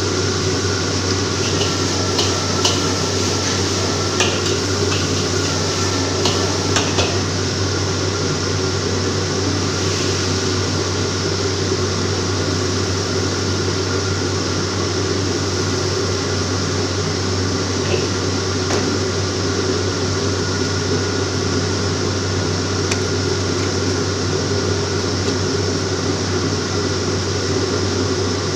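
Steady roar of a commercial wok range, its gas burner and extraction hood running, with a low hum underneath. Over the first several seconds a metal spatula clinks and scrapes against the steel wok as the vegetables are stir-fried; after that there are only a few scattered clinks.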